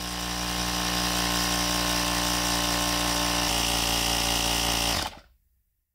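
Portable electric tire inflator's compressor running steadily as it pumps a car tire up to 35 psi, a steady motor hum with a high airy hiss over it. It cuts off about five seconds in.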